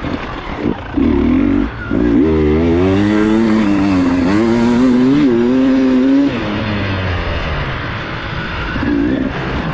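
Beta enduro motorcycle engine heard from on board: a couple of short bursts of throttle, then about four seconds of hard acceleration with the pitch rising and dropping through the gears, before the rider backs off and it runs quieter.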